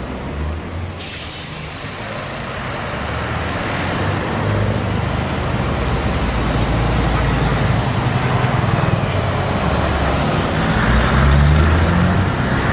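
Heavy Scania and MAN tractor units driving slowly past one after another, their diesel engines running and growing louder near the end. A sharp hiss of compressed air from an air brake about a second in.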